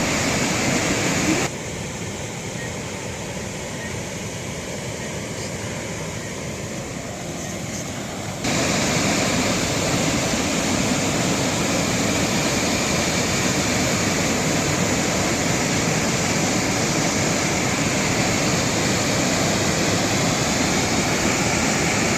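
A waterfall's rushing water as a steady, even roar. It drops suddenly to a lower level about a second and a half in and jumps back up about eight and a half seconds in.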